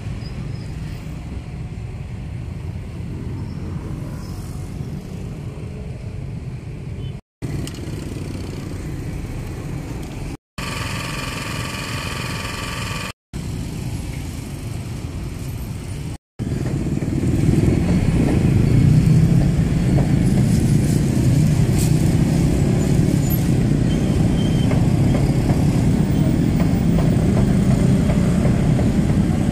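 Steady rumble of street traffic, motorbikes among it, in several short edited segments. A brief pitched sound with several tones rises out of it for about three seconds in the middle, and the rumble grows louder for the last twelve seconds or so.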